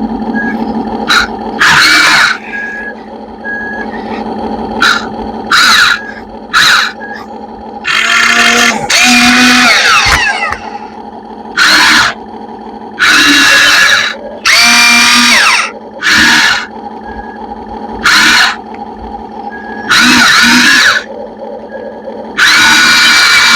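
Remote-control hydraulic excavator running, its pump motor giving a steady hum, broken by about a dozen loud, harsh squealing bursts, some under half a second and some over a second, with the pitch sliding within a few of them.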